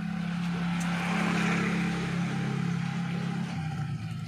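A motor's steady low hum, with a rushing noise that swells through the middle and fades; the hum drops a little in pitch near the end.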